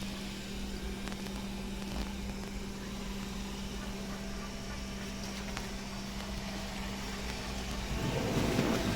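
Steady low hum of a running machine or appliance, with a brief rustling noise about eight seconds in.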